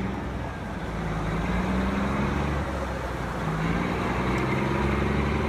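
1994 Kenworth T800 truck tractor's diesel engine running as the truck drives slowly, its engine note climbing a little about two-thirds of the way through.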